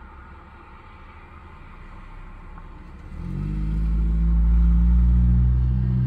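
A motor vehicle's engine: a low, steady engine note that comes up sharply about three seconds in and stays loud, heard from inside a parked car.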